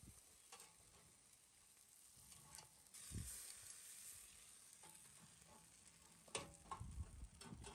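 Marinated chicken sizzling faintly in a wire grill basket over hot charcoal, a soft steady hiss with a few sharp clicks and crackles, the loudest about six seconds in.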